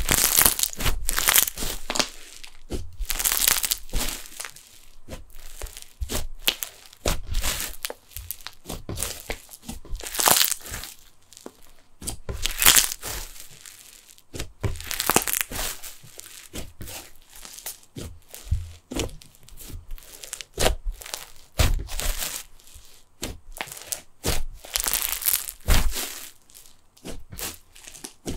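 Snow fizz slime (glue slime packed with plastic instant snow) being squeezed and pressed by hand, giving a dense fizzing and crackling with louder crunchy bursts every second or two.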